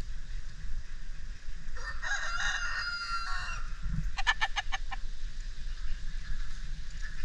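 Rooster crowing once, a call of nearly two seconds starting about two seconds in, followed a moment later by a fast run of about six short clucks.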